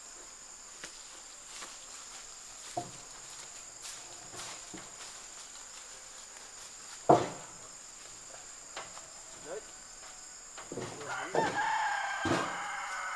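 Wooden planks knocking as they are handled and set down, one sharp knock about seven seconds in the loudest, over a steady high insect buzz. Near the end a rooster crows, its call falling in pitch as it ends.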